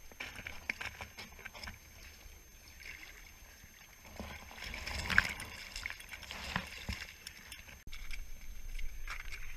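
Water sloshing and splashing in a hole in the ice as divers in drysuits shift about at its edge, with small knocks and scrapes. The splashing is loudest around the middle.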